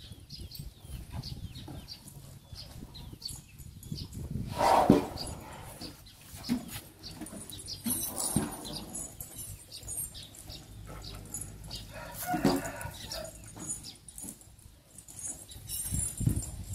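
Elephants moving about on straw-strewn dirt: scattered rustling and flapping sounds, with a louder short sound about five seconds in and another about twelve seconds in.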